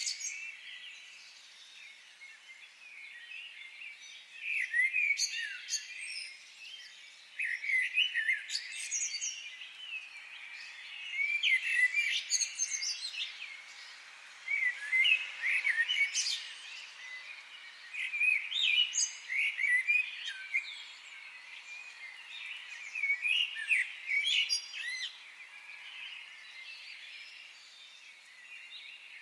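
Several wild birds chirping and singing, in short busy bouts every few seconds, over a faint steady high hiss.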